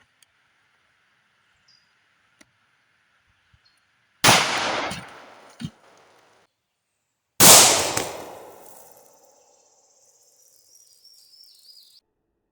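Two shots from a Tisas M1911 .45 ACP pistol, about three seconds apart, each followed by an echo that dies away over a second or more.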